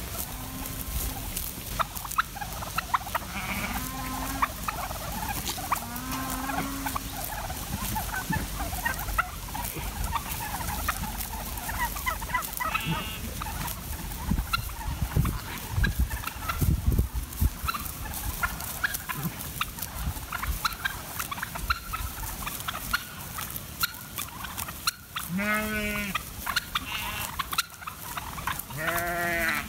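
Sheep grazing, with many small clicks and rustles and a few short, low bleats in the first seconds. Turkeys gobble twice, about 25 and 29 seconds in, each a wavering call. Low rumbles come around the middle.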